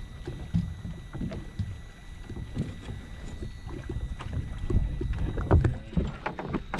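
Irregular low knocks and bumps over a wind rumble on the microphone, getting busier about five seconds in, with a faint steady high tone behind.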